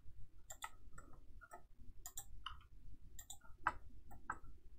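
Computer mouse buttons and keyboard keys clicking in an irregular run, a few clicks a second, over a faint low hum.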